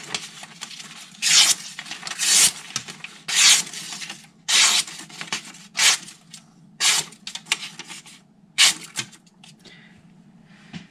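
Carbon-steel kitchen knife blade drawn in repeated strokes, about one a second, each a short hissing rasp; the strokes thin out and stop near the end.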